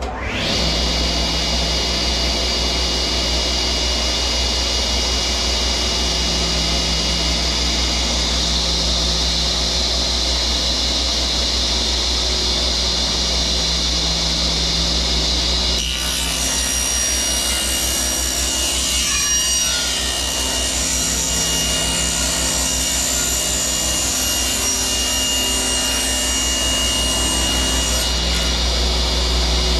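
1968 cabinet table saw, its 5-horsepower motor driving the blade through four belts, coming up to speed and running with a steady hum. About halfway in it cuts through a wooden board for roughly twelve seconds, then runs free again near the end.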